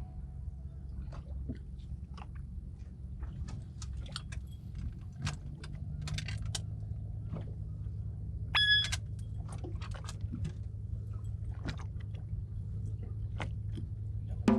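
Scattered small clicks and handling noises over a steady low hum, with a short high beep about halfway through.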